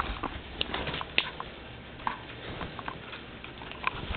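Scattered light clicks and taps at irregular intervals, over a faint low background.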